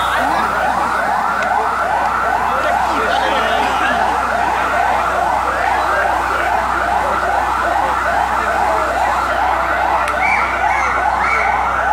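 Fire engine siren sounding a fast yelp: rapid rising sweeps, about three a second, going on without a break, with crowd voices faintly underneath.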